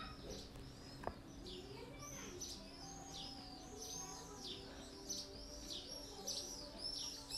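Faint bird chirping: a quick run of short high calls, each falling in pitch, over a faint steady low hum.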